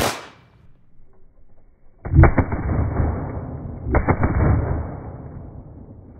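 Pistol shots against a curved armored car window: one sharp crack at the start, then two quick strings of shots, about two and about four seconds in, that echo off the range. The later shots are fired through the reversed glass from its return-fire side, which the bullets fully penetrate.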